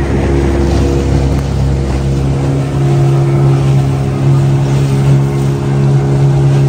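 Motorboat engine running at a steady, even pitch, with water rushing and splashing past the hull.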